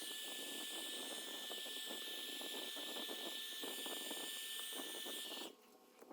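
A small electric air blower runs with a steady hiss and a thin, high whine, then is switched off suddenly about five and a half seconds in.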